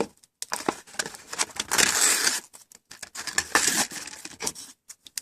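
Plastic blister packaging and cardboard of a Hot Wheels toy car crinkling and tearing as it is opened, in irregular rustles and clicks.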